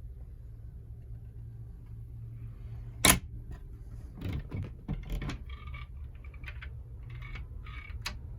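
A steady low hum, with one sharp loud knock about three seconds in, then a few dull thuds and a scatter of small clicks and clinks, some with a faint ring.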